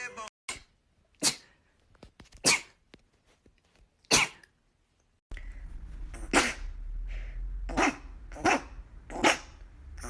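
Rapid-fire sneezes, each short and sharp: four in a row about a second apart, then a second run of four or five quicker sneezes over a steady low hum.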